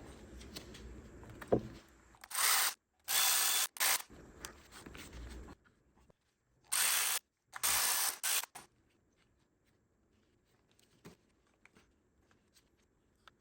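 Ratchet wrench clicking in short runs as spark plugs are turned into the engine's cylinder heads, in two groups a few seconds apart.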